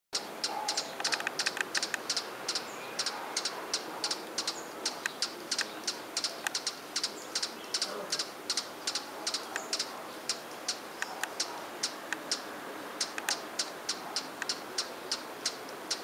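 Perched hummingbird singing: a long run of short, sharp, high chips, about four or five a second in uneven bunches.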